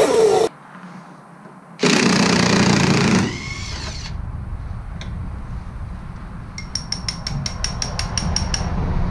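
A two-stroke snowmobile engine revving, cut off abruptly half a second in. Then a cordless impact driver runs in one loud burst of about a second and a half on the trailing-arm bolt, followed near the end by a quick run of sharp, evenly spaced clicks lasting about two seconds.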